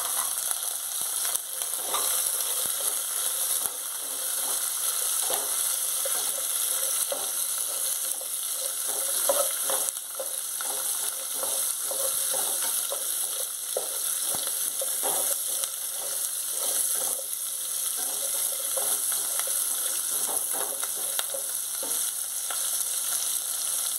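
Small onions (shallots) sizzling steadily in hot sesame oil, with scattered crackles and the scrape of a spatula stirring them in the pot.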